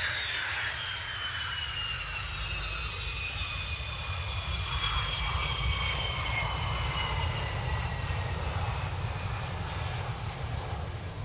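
Twin jet engines of a MiG-35 fighter, a MiG-29 variant, landing and rolling out on the runway: a steady jet roar with a whine that falls slowly in pitch.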